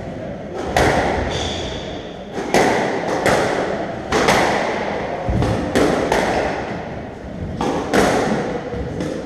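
Squash rally: the ball is struck by rackets and smacks off the court walls in sharp cracks about once a second, each one ringing on in the enclosed court. A brief high squeak comes about one and a half seconds in.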